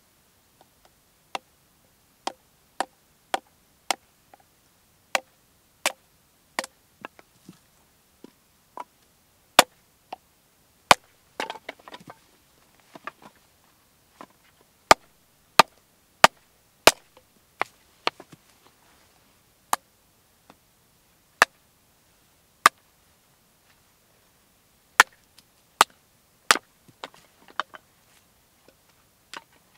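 Hatchet chopping and splitting firewood on a wooden chopping block: about two dozen sharp, separate knocks at irregular spacing, fairly quick in the first few seconds and more spread out later, with a short patter of smaller knocks about a third of the way in.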